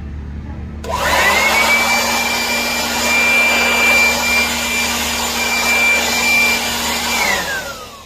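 Jakmister handheld electric air blower switched on about a second in, its motor whining up to a steady high pitch over a loud rush of air as it blows dust off concrete. Near the end it is switched off and the whine falls away as the motor spins down.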